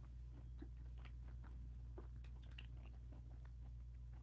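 Faint chewing of a chocolate candy bar with crunchy cereal bits: scattered small crunches and mouth clicks over a steady low hum.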